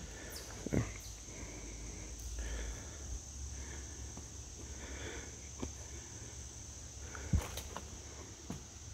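A hiker's footsteps on a woodland trail: a few scattered, uneven thuds, the loudest near the end. Behind them runs a steady high-pitched drone of crickets or other insects.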